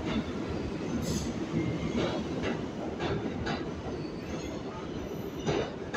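R142A subway train moving past along the platform: a steady rumble with repeated clicks of the wheels over rail joints, roughly twice a second. Brief high wheel squeals come about a second in and again near the end.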